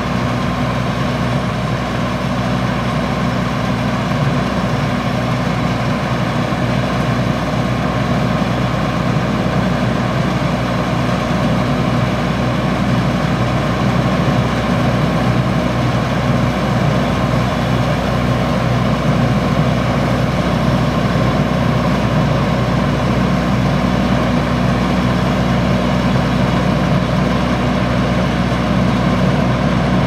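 Case IH 2388 Axial-Flow combine's diesel engine and threshing machinery running in a steady drone while its unloading auger empties canola into a truck.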